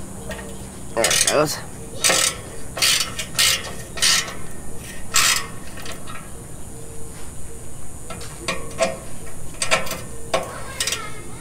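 Hand ratchet wrench working a bolt on a steel bumper light-mount bracket: a series of separate ratcheting clicks and strokes at uneven intervals, with a pause in the middle.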